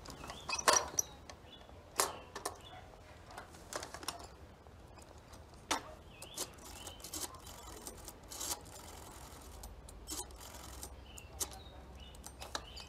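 Scattered clicks and knocks from an old desk telephone being handled and dialled for a new call, with a short whirr about two-thirds of the way through.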